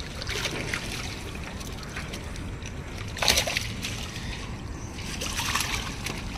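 Lake water sloshing and splashing around a mesh keep net of caught fish as it is moved about in the shallows, with one louder splash about three seconds in.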